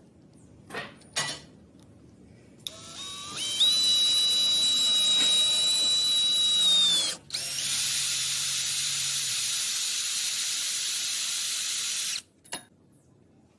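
A small electric power tool, drill-like, runs twice for about four and a half seconds each. The first run spins up with a rising whine, holds steady and winds down before the second starts. A couple of clicks come before it and one just after.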